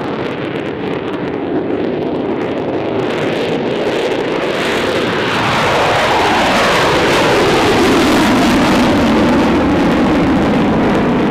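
F-35 Lightning II's Pratt & Whitney F135 afterburning turbofan at full afterburner on a takeoff, a loud jet roar that builds over the first few seconds. Around the middle a falling tone sweeps down as the jet goes past, then the roar stays loud.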